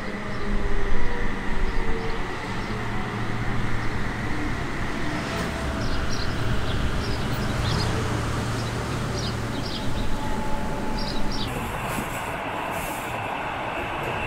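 Metre-gauge electric train of the Appenzeller Bahnen running, a steady rumble of wheels on rail with a few faint steady tones, and short high squeaks now and then from about five seconds in.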